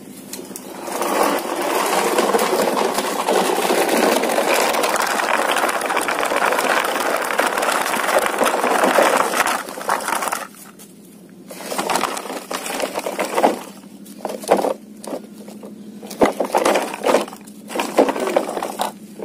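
Plastic toy dump truck dragged on a string over gritty dirt: its wheels give a continuous rattling scrape for about ten seconds, then it breaks into shorter scrapes and knocks.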